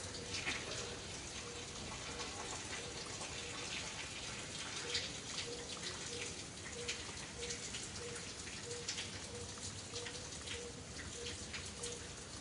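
Steady outdoor ambient hiss dotted with many small irregular ticks, with a faint short note repeating about twice a second.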